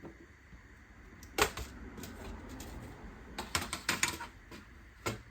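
Sharp plastic clicks and taps from hands working on a laptop's case and parts during disassembly. There is a single click about a second and a half in, a quick cluster of clicks around the middle, and one more near the end.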